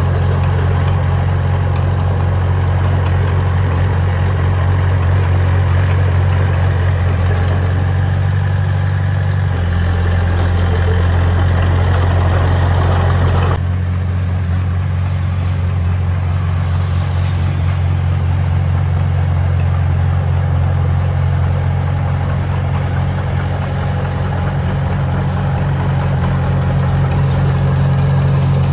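Heavy machine's diesel engine running steadily and loudly, its low note shifting about ten seconds in, then an abrupt change in tone about fourteen seconds in.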